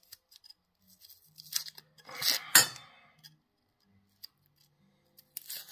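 Dry, papery onion skin crinkling and tearing as it is peeled off with a small kitchen knife, with light clicks of the blade. There is a louder crackly tear about two seconds in and a shorter one near the end.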